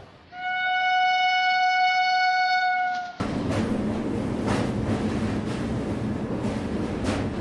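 A single steady locomotive horn blast lasting about three seconds, cut off sharply, then the continuous rumble of a train running on track with irregular clacks of wheels over rail joints: a dubbed train sound effect.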